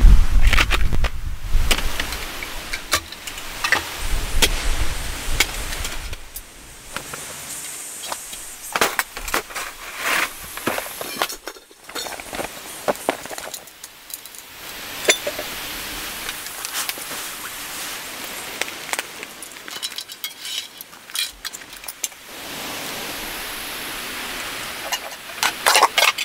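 Camping gear being set up and unpacked by hand: a string of metal and plastic clinks, clicks and knocks from folding tables, a tripod-hung pot and cookware, with a heavy thud at the start. A steady outdoor hiss runs underneath.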